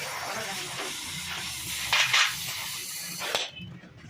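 A steady hiss, stronger briefly about two seconds in, that cuts off about three and a half seconds in.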